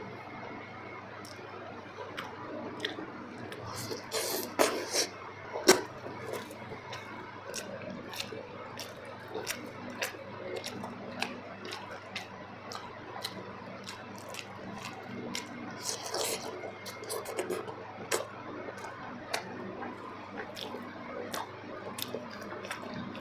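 Close-miked eating sounds: wet chewing and lip smacks on soft kuzhi paniyaram dipped in chutney and gravy, with many short clicks and a few louder wet smacks.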